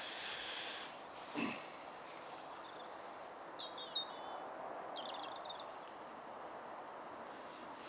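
A few short, high bird chirps in the middle, over a steady outdoor background, with one brief sharp sound about a second and a half in.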